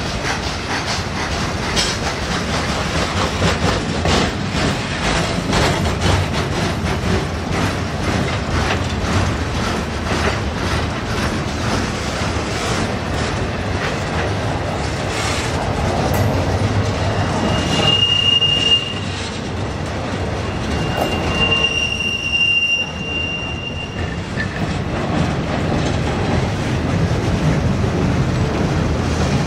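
Railroad flatcars rolling past close by, wheels clicking steadily over the rail joints. Twice, about two-thirds of the way through, the wheels let out a high squeal, the second one longer.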